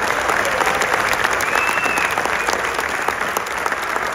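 Theater audience applauding: many people clapping together in a steady, dense patter.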